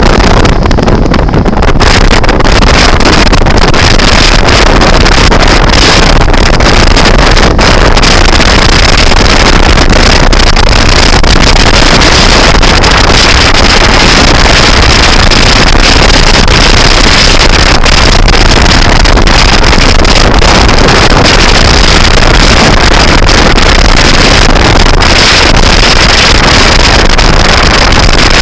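Loud wind buffeting the microphone of a moving scooter, a dense, steady rush near full volume that drowns out the engine.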